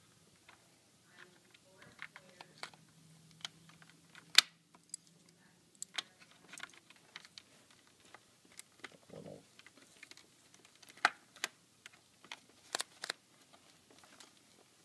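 Irregular small clicks and taps of latch parts being handled and pushed into place by hand, with one sharper click about four and a half seconds in.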